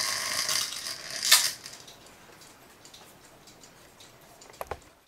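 Cuckoo clock weight chain rattling as it is pulled through the case and over the movement, with a sharp clink about a second and a half in. Two soft knocks follow near the end.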